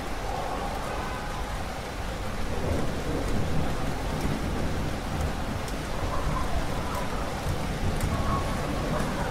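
Steady rain falling, with a low rumble of thunder building about two and a half seconds in and rolling on through the rest.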